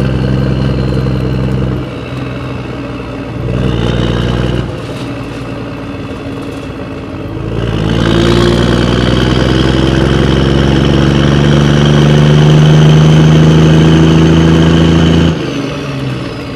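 Kiddie ride car's engine sound, running steadily, easing off twice, then slowly revving higher and louder before cutting off abruptly near the end.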